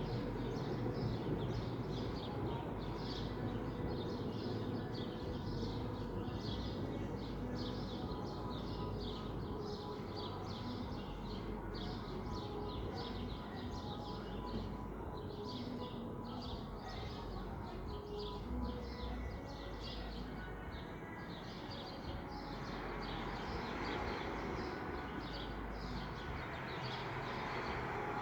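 Bass of loud amplified music carrying from more than a block away, heard as a muffled low beat, with many birds chirping rapidly over it.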